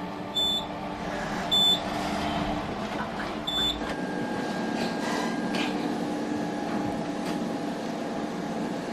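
Short high electronic beeps from tattoo-removal equipment, three in the first four seconds, over a steady machine hum.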